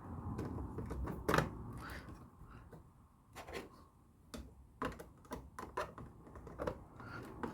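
Plastic Lego pieces clicking and clattering as they are handled, with irregular sharp clicks, the loudest about a second and a half in.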